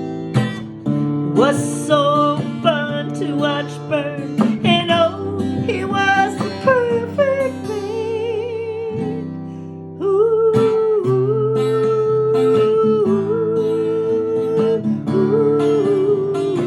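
Acoustic guitar playing a song, picked and strummed, with a melody line over it. The melody moves in quick notes at first, then settles into long held notes that waver, from about halfway through.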